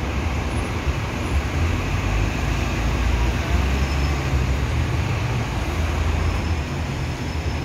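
Heavy road traffic of double-decker buses, lorries and cars creeping forward in a jam: a steady low engine rumble under continuous road noise.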